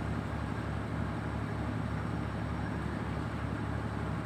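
A shipboard engine running steadily, giving a low, even hum.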